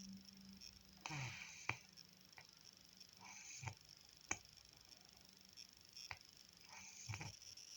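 A sleeping person snoring faintly: three slow breaths a few seconds apart, with a few sharp clicks in between.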